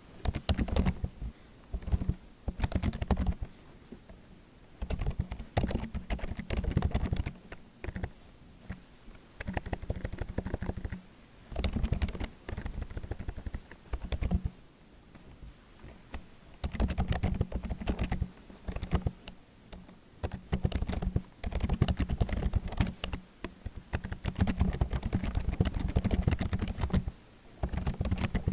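Computer keyboard being typed on in bursts of quick keystrokes, with short pauses between the bursts.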